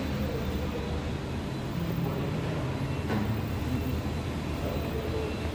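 Steady low rumble of background noise with no distinct event.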